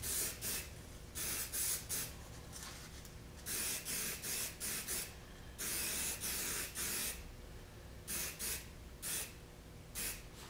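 Aerosol can of hairspray sprayed in a string of about a dozen short hissing bursts, with one longer spray of about a second and a half past the middle. It is being laid on as a mold release over packing tape.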